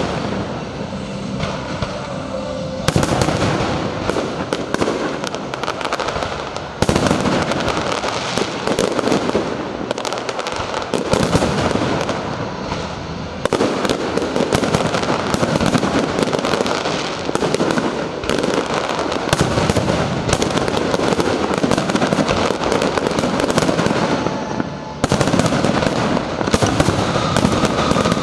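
Aerial fireworks going off in a dense, continuous barrage of overlapping bangs and crackles, with sudden jumps in loudness about 3, 7, 13 and 25 seconds in.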